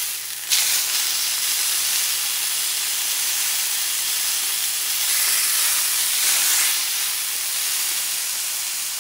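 Kangaroo loin searing in ghee butter in a hot frying pan: a steady, loud sizzle that gets suddenly louder about half a second in.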